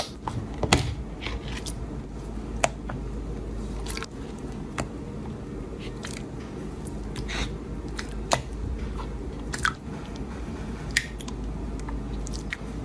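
Slime being pressed and squeezed by hand, giving irregular sharp pops and crackles about once a second over a steady low hum.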